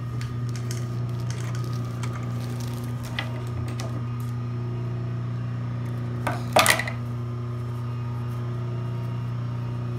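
Industrial sewing machine's motor humming steadily while the machine sits idle, with fabric rustling and small clicks as the stitched muslin and its threads are pulled out from under the presser foot. A brief sharp clatter comes about six and a half seconds in.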